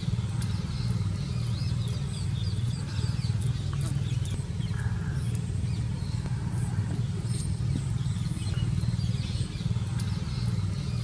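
Steady low rumble of an engine or traffic, with small birds chirping faintly over it now and then.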